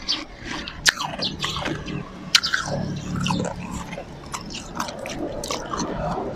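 Close-miked chewing of slushy ice: irregular sharp crunches and crackles as the ice is bitten and ground between the teeth, the loudest crunch about two and a half seconds in.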